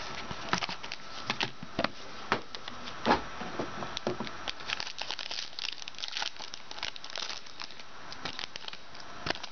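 Foil wrapper of a football trading-card pack crinkling and tearing as it is opened by hand, with irregular sharp crackles and one louder crackle about three seconds in.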